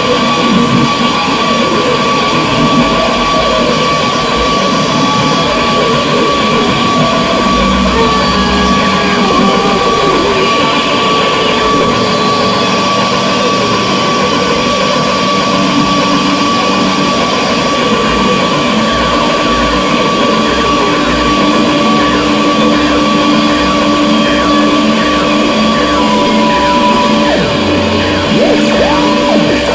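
Dense, loud improvised noise music from two electric guitars and turntables, a thick clattering wash with a steady high held tone running through it that shifts near the end, and wavering glides over the top.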